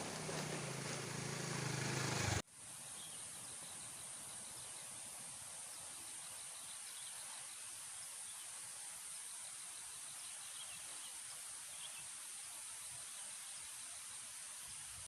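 Outdoor forest ambience: a steady high hiss with faint, scattered chirps of insects or birds. It opens with a louder sound with a low hum that swells for about two and a half seconds and then cuts off suddenly.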